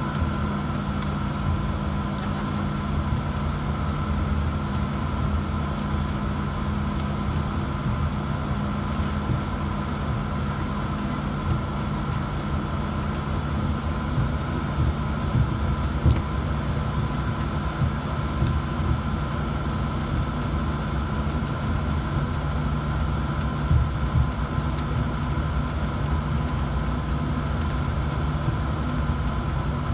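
Steady cabin noise of a jet airliner taxiing: a low rumble with a steady engine whine, and a few light bumps partway through.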